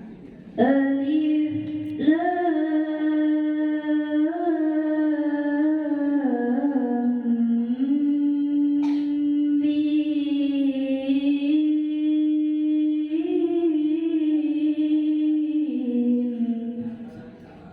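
A young girl reciting the Qur'an in the melodic tilawah style, her voice alone holding long, ornamented notes that slide between pitches. It starts about half a second in, pauses briefly near 2 seconds, then carries one long phrase that ends near the end.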